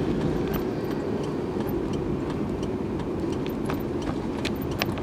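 Car running, heard from inside the cabin: a steady low rumble of engine and road noise, with scattered light clicks.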